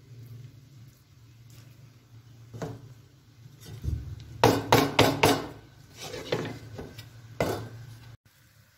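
A spatula knocking and scraping against a pan while biryani rice is being mixed: irregular knocks, the loudest bunched together about four to five seconds in, over a low steady hum.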